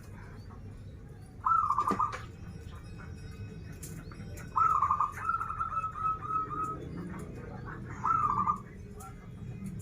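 Zebra dove (perkutut) cooing: three rolling coo phrases, the middle one drawn out into a longer string of notes.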